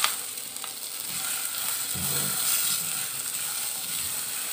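Char magaz (melon seeds) frying in ghee in a metal pot, sizzling steadily while a spatula stirs them through. A single sharp knock comes right at the start.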